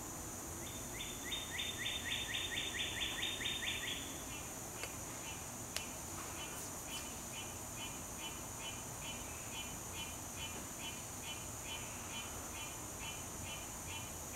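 A bird sings a quick run of about a dozen down-slurred notes in the first few seconds, then a softer chirp repeats about twice a second over a steady high insect drone. A short click sounds about six seconds in.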